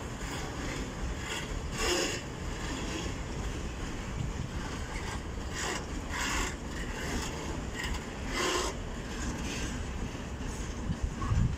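Freight train of open coal wagons rolling past: a steady rumble of wheels on rail, with short scraping, grinding bursts from the wheels several times.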